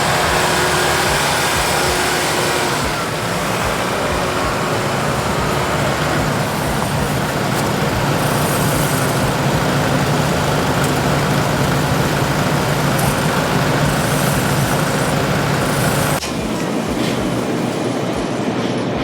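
Kubota tractor's diesel engine running steadily under load with its snowblower, with a constant rushing noise over the low hum. About sixteen seconds in, the low engine hum drops away and a lighter, hissier sound takes over.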